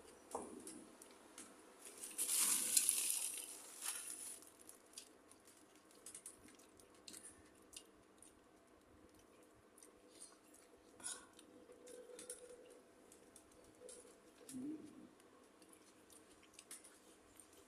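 A person eating a cucumber salad meal: chewing with scattered small clicks of dishes and utensils. A louder crackly noise lasts about two seconds, starting about two seconds in.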